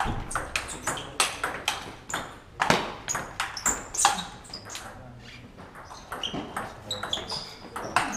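Table tennis ball clicking back and forth off the bats and table in a rally, the clicks thinning out about halfway through before picking up again.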